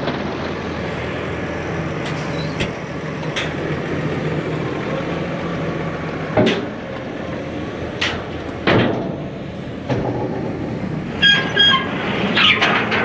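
Tractor-drawn stone picker running steadily, with loud clunks every second or two as stones knock through the machine. Near the end come a few short high tones.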